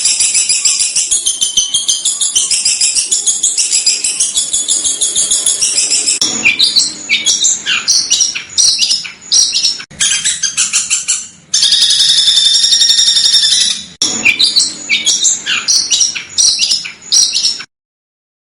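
Recorded songbird song of the kind used as masteran to tutor competition birds: fast, high-pitched chattering phrases, with a steady buzzing trill for a couple of seconds in the middle. It cuts off abruptly a little before the end, leaving silence.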